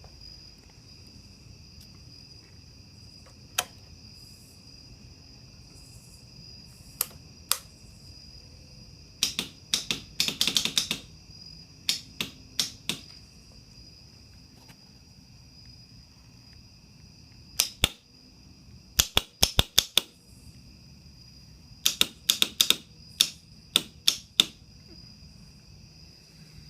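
Kawasaki Ninja 250's starter relay clicking, sometimes single sharp clicks and sometimes rapid chattering runs, without the engine cranking or catching. This is the motorcycle failing to start, typical of a weak battery.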